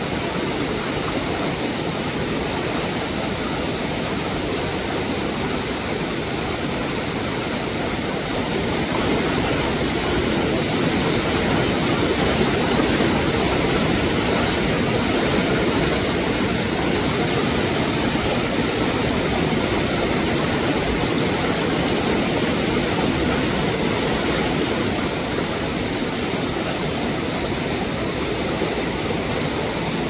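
Steady rush of a rocky mountain stream. For most of the middle stretch, a louder low rumble swells up, holds and fades away again.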